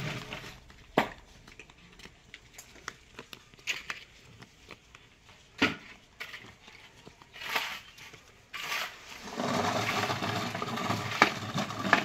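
Steel concrete pans knocking and scraping with wet concrete: scattered sharp knocks and short scrapes. From about nine seconds in, a denser scraping rush as concrete is tipped from a pan into the column's steel formwork.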